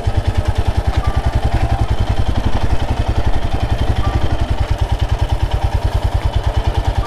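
Royal Enfield Himalayan's single-cylinder engine idling, with a steady, even beat of about a dozen low pulses a second.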